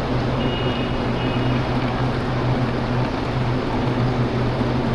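Steady low mechanical hum over a wash of noise, with two faint short high beeps about half a second in.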